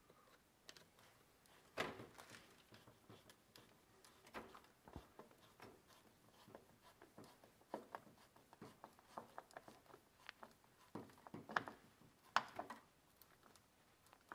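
Near silence broken by faint, scattered clicks and light knocks of hand work: a cone air filter being pushed onto an intake pipe and its metal hose clamp tightened by hand.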